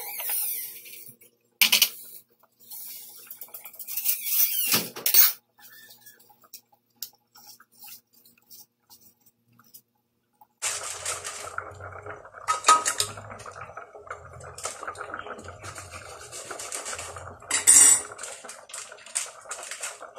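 A metal spoon scraping and clinking against a stainless steel pot as a thick peanut stew is stirred, in loud strokes over the first five seconds. After a short quiet gap, a steady rushing noise with scattered clinks fills the second half.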